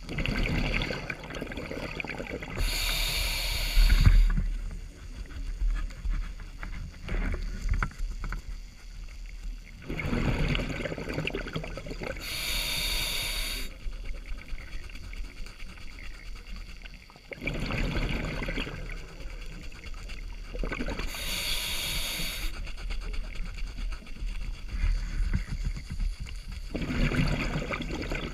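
Scuba diver breathing through a regulator underwater: a rushing, bubbling noise alternating with about a second of bright hiss, in a slow breath cycle that repeats about every eight to nine seconds, three times over.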